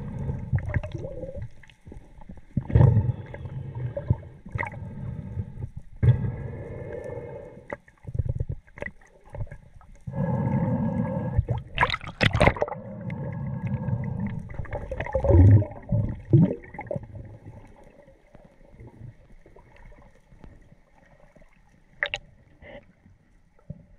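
Water sloshing and gurgling close to the microphone in irregular muffled swells, with scattered knocks and a loud splash about halfway through.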